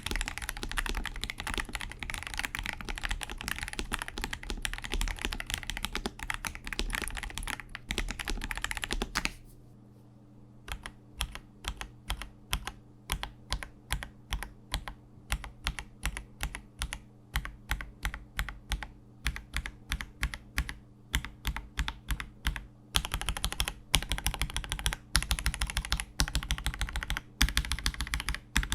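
Mechanical keyboard (KBD67 Lite R3 with Akko Starfish linear switches) being typed on, a quick stream of key clicks. About nine seconds in, the typing thins to separate keystrokes, about four a second, over a quieter background; about 23 seconds in, it returns to fast, dense typing.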